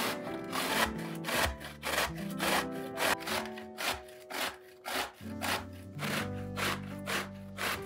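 A zucchini being grated on a stainless steel box grater: rhythmic rasping strokes, about two to three a second, over background music.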